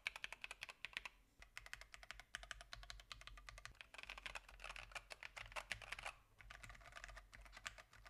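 Fast typing on a LOFREE Touch mechanical keyboard fitted with TTC Gold Pink linear switches and PBT keycaps: a quick run of light key clacks with brief pauses. Near the end the typing moves to an IQUNIX ZX75 mechanical keyboard.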